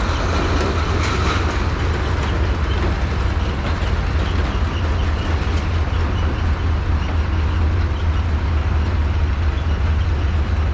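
1910 Aultman Taylor 30-60 tractor engine running steadily with a deep low rumble, belted to a sawmill.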